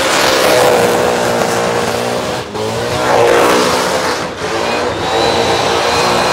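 A supercharged burnout car's engine held at high revs while its rear tyres spin on the burnout pad. The revs dip briefly twice, about two and a half and a little over four seconds in.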